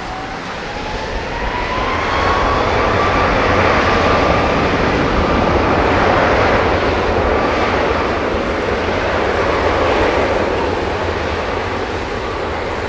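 Boeing 777-200ER's twin Rolls-Royce Trent jet engines at takeoff thrust during the takeoff roll. A loud, steady jet noise carries a whine that rises in pitch over the first two seconds or so. The sound grows louder as the airliner passes, then eases slightly near the end.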